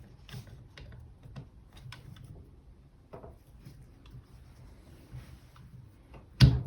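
Metal parts of a Pewe Multifix tool post being fitted together by hand: scattered light clicks and taps, then one sharp metallic clunk a little before the end as the tool post goes into place on its stub shaft.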